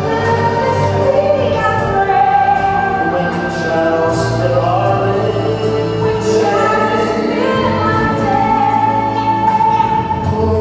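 Recorded gospel ballad playing: a sung melody held on long notes over choir-like backing and low bass notes.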